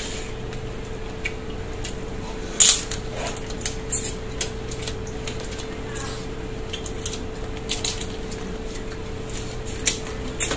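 Steamed sea crab shells being cracked and picked apart by hand while eating. Scattered sharp clicks and cracks, the loudest about two and a half seconds in, over a steady hum.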